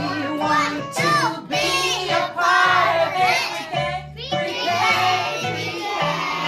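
A children's song: young voices singing over accompanying music with a bass line of held low notes.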